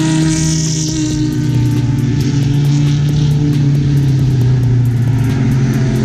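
Engines of vintage race cars running as they drive past on the circuit, mixed with a hip-hop backing beat: steady bass notes that change pitch in steps and regular hi-hat ticks.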